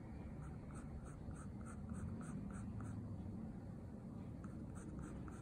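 Wooden drawing stick dipped in ink scratching across paper in quick hatching strokes, about four a second. The strokes pause around three seconds in and start again near the end.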